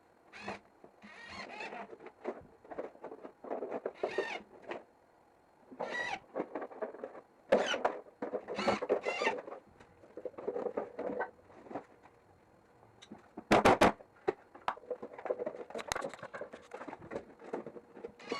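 Irregular squeaks, scrapes and rubbing of hand work on wooden boards, in short bursts with pauses, and a quick cluster of sharp knocks about two thirds of the way through.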